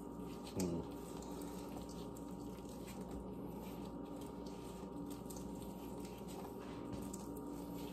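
Soft, faint wet handling sounds of charred eggplant skin being peeled off by gloved hands, over a steady low electrical hum. About half a second in, a brief sound falls in pitch.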